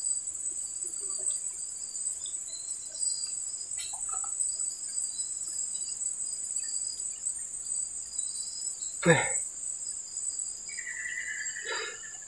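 Steady high-pitched chirring of an insect chorus, without a break. A single brief loud thud about nine seconds in.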